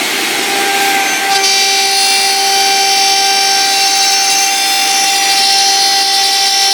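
CNC wood lathe running with a steady machine whine that grows fuller and brighter about a second and a half in.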